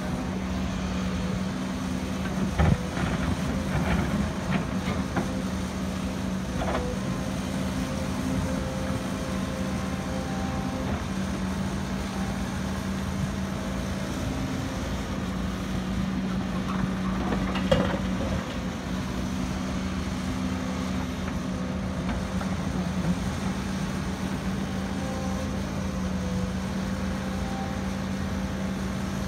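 Hidromek HMK230 H4 crawler excavator's diesel engine running steadily with a held drone while it digs and swings loads of soil. Two sharp knocks stand out, about three seconds in and again near eighteen seconds, as the bucket strikes the ground.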